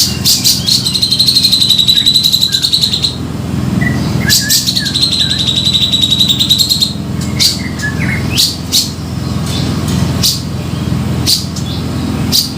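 Cucak jenggot (grey-cheeked bulbul) calling energetically on a lure recording: two long, fast rattling trills of two to three seconds each, one near the start and one in the middle, with short sharp calls between and after them. A steady low hum runs underneath.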